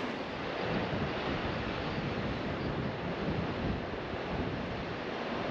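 Steady rushing of wind and Atlantic surf at a clifftop, with the wind buffeting the microphone.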